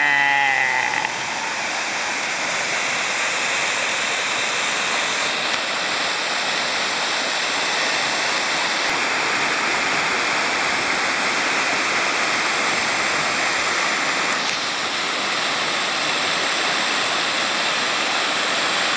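Waterfall pouring down a rock face into a canyon pool: a steady, loud rush of falling water.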